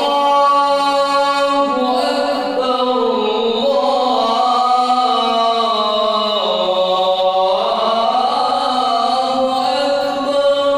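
A man's solo adhan (Islamic call to prayer) sung loudly into a microphone: one long, unbroken, ornamented phrase whose pitch dips about two-thirds of the way through and climbs again near the end.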